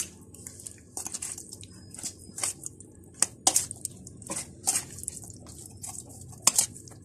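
A metal spoon mixing raw chicken pieces into a yogurt and spice marinade in a stainless steel bowl: irregular wet squelches, with the spoon scraping and knocking against the bowl.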